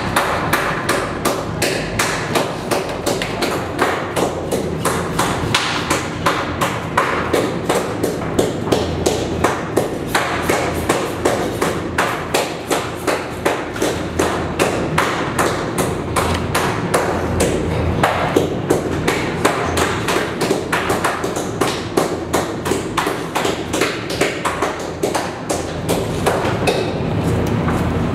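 Butchers chopping beef on a steel work table: a steady, fast run of sharp knocks, about three or four a second, over a constant background din.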